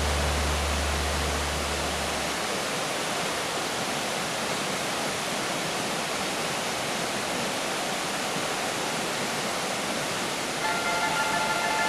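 Steady rushing of a fast mountain river running over rocks and rapids. Background music fades out in the first couple of seconds and comes back near the end.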